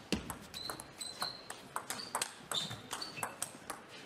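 Table tennis rally: the celluloid ball clicking sharply off the table and the rackets in a quick run of knocks, several a second, that stops shortly before the end. A few brief high squeaks come in between.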